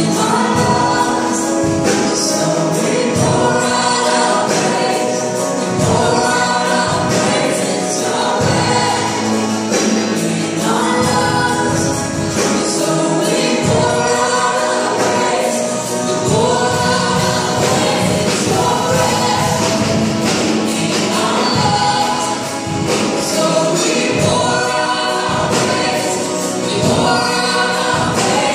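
A church congregation singing a worship song together over accompanying music with a steady beat.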